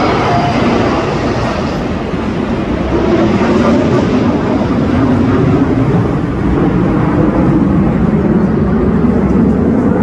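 Jet engines of a formation of military aircraft, a large jet with fighter jets, flying low overhead: a steady roar that swells about three seconds in and holds.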